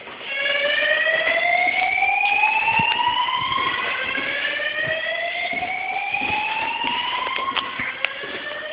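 Fire alarm sounding its slow-whoop tone during a test. It starts abruptly just after the beginning, and each tone climbs steadily for about four seconds, then drops back and rises again: two full sweeps, with a third beginning near the end.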